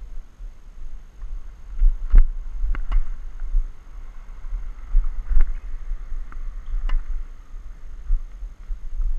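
Wind buffeting an action camera's microphone as a steady low rumble, with about five sharp knocks of tennis balls being struck or bouncing, the loudest about two seconds in.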